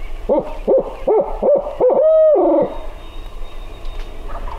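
Imitation barred owl hoot made by a hunter: five quick rising-and-falling hoots and then one longer drawn-out note about two seconds in. It is a locator call, meant to shock a turkey gobbler into gobbling.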